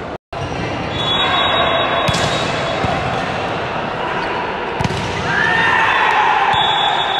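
Volleyball rally in a large indoor hall: spectator and player noise with sharp ball strikes about two seconds in and again near five seconds, then a rising-and-falling shout.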